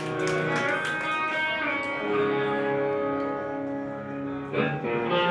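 A rock band playing live, led by guitar, with several held notes ringing over one another.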